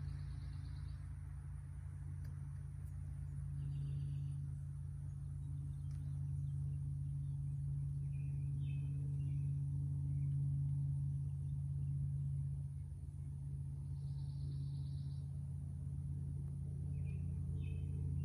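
Outdoor background: a steady low hum, with a few short high insect trills and brief bird chirps over it.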